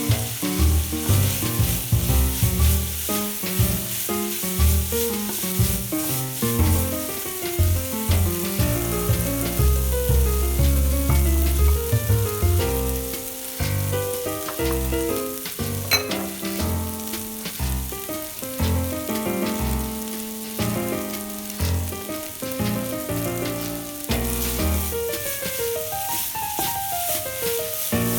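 Food sizzling in a hot frying pan, a steady crackling hiss, over background music with a melody and bass line.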